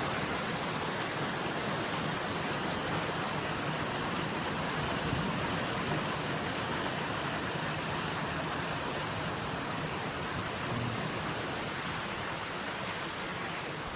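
Heavy rain falling steadily, an even, unbroken hiss of downpour, easing slightly in level near the end.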